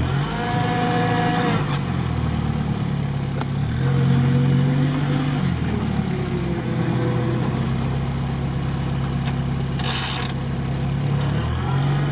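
Off-road 4x4's engine heard from inside the cab, running with the revs rising and falling several times while the vehicle sits stuck in the bog with its front hubs not yet engaged.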